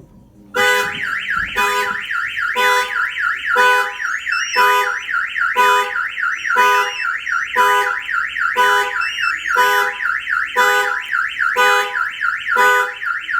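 Aftermarket Autoshield car alarm siren warbling rapidly, with the Ford Expedition's horn honking about once a second. The alarm has been set off by a door being opened while the system is armed.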